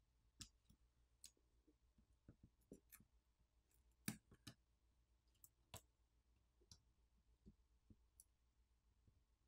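Faint, scattered small clicks and taps as fingers handle the opened e-ink tablet's internal parts: flex-cable connectors and the motherboard area. The loudest click comes about four seconds in.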